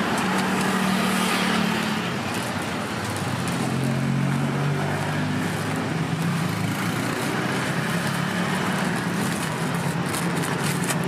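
Street traffic: a steady run of vehicle engine hum and road noise, with a few faint sharp clicks near the end.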